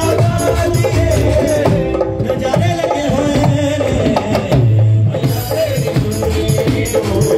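Live devotional bhajan music: dholak hand drum beating a fast rhythm under a Roland electronic keyboard melody.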